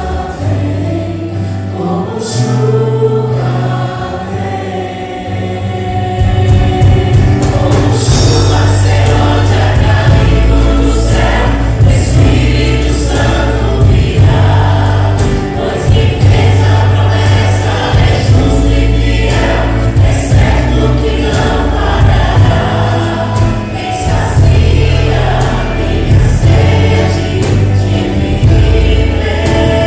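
Choir singing a gospel praise song with band accompaniment: bass and regular drum beats, growing fuller and louder a few seconds in.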